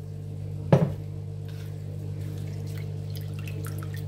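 A water jug set down on a stone counter with a single sharp knock about a second in, then faint small splashes as a hand stirs flattened rice (poha) soaking in water in a plastic bowl, over a steady low hum.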